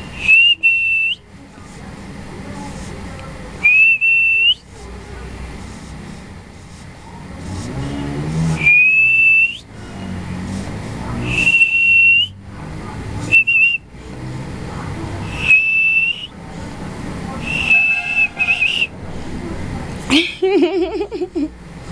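A person whistling a single high note again and again, about eight short whistles spaced a few seconds apart. Most end with a quick upward flick.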